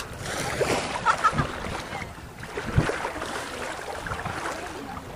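Seaside wind buffeting the microphone over shallow sea water lapping, with faint voices now and then.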